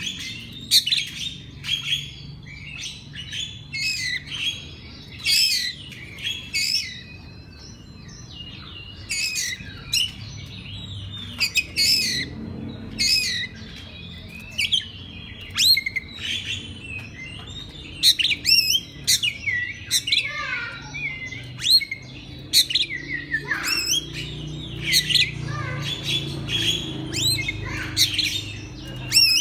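Oriental magpie-robin (kacer) in full song: a rapid, varied run of clear whistles, sweeping slurred notes and sharp chirps, phrase after phrase with hardly a pause.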